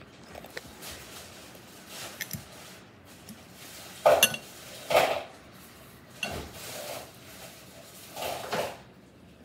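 A metal fork scraping and clinking against a bowl in a few separate strokes, the loudest about four and five seconds in.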